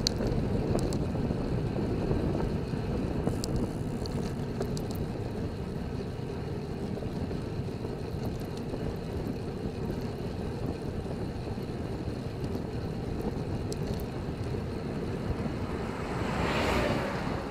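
Steady wind rush over a bicycle-mounted camera's microphone with tyre and road noise while riding, with a few faint clicks. Near the end a lorry passes with a swell of noise that rises and falls.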